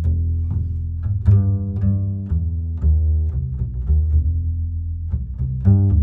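Background music with low strings: a run of deep bass notes, each starting sharply and changing every half second or so, with higher string notes above.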